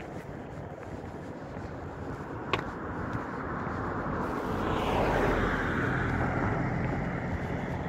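Road traffic: a passing vehicle's tyre and engine noise swells to a peak about two-thirds of the way through, over a steady outdoor hiss. A single sharp click about a third of the way in.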